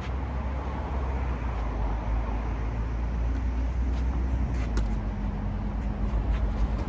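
Steady low rumble, like road traffic, with a few short sharp knocks around the middle and near the end.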